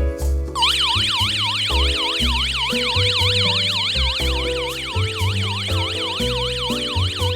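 Electronic alarm siren of a PG-103 security alarm system sounding in a fast warble, its pitch sweeping up and down about three times a second. It starts about half a second in and cuts off just before the end.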